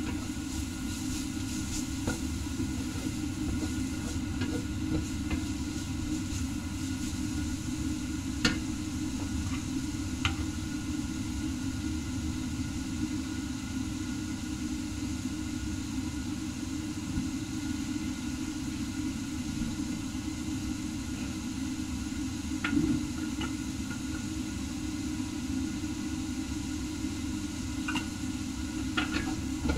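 Sliced onions frying in a stainless steel wok: a steady sizzle over a constant low rumble, with a few sharp knocks of a wooden spatula against the pan.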